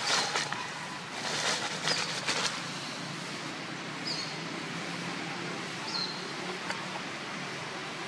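Dry leaf litter rustling in short bursts as long-tailed macaques scuffle over it during the first two and a half seconds. After that, a steady outdoor background with two brief high chirps.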